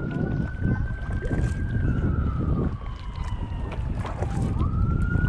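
Wind buffeting a cap-mounted GoPro's microphone during slow paddling in an inflatable kayak, with small knocks and splashes. Over it a long, distant wailing tone slides slowly down in pitch and jumps back up about four and a half seconds in.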